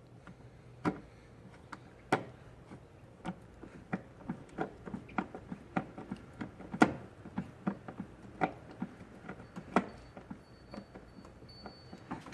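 Irregular clicks and knocks of parts and hand tools being handled, roughly two a second and uneven in strength, with the sharpest knock about seven seconds in.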